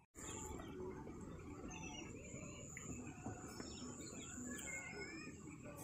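Birds chirping with many short whistled calls, over a continuous high insect drone and a soft outdoor hiss. The sound cuts in abruptly just after the start.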